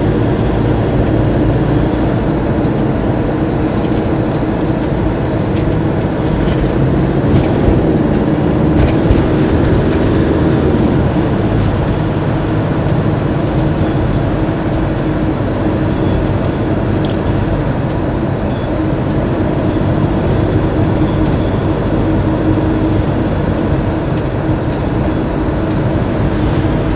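Cab noise of a Fiat Ducato-based motorhome driving at motorway speed: a steady drone of the diesel engine and tyres on the road, with a low hum that wavers slightly in pitch.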